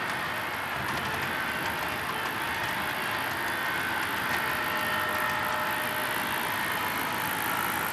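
HO scale model freight train running past, a steady rolling noise of its wheels on the rails.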